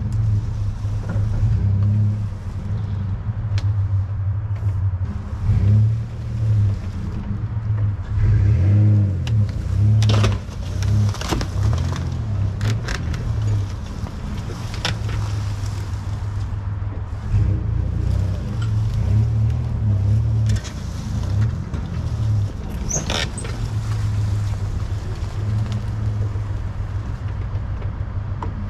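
Tow vehicle's engine running at low speed, its hum swelling and easing as it pulls the loaded boat trailer over rough ground. A few sharp snaps and knocks come through the middle.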